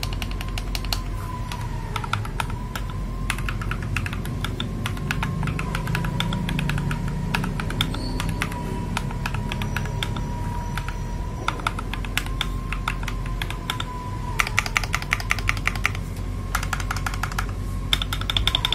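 Mechanical keyboard with linear switches being typed on in quick runs of keystrokes, with short pauses between runs and faster flurries near the end.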